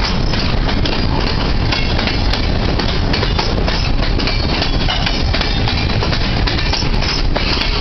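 Freight train's steel-wheeled gondola cars rolling past close by: a steady rumble of wheels on rail with frequent clicks and clanks throughout.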